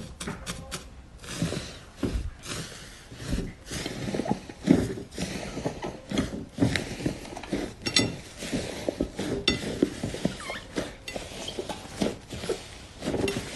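Fluffy slime with crumpled green foil pieces being pressed and kneaded by hand: the foil crinkles and crackles amid soft squishes and pops of the slime, in an irregular run of many small clicks.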